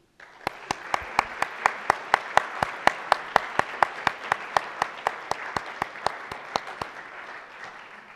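Audience applauding, with one pair of hands clapping close by, sharp and even at about four claps a second. The applause starts just after the opening and fades near the end.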